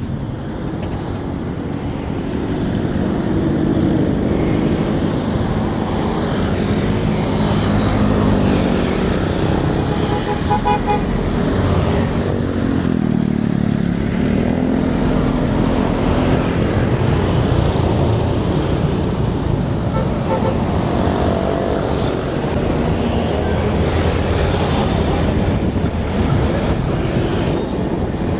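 Street traffic heard from a moving bicycle: motorcycle and car engines running and passing close, over a steady road noise. A brief horn toot about ten seconds in, and an engine whose pitch dips and rises again shortly after.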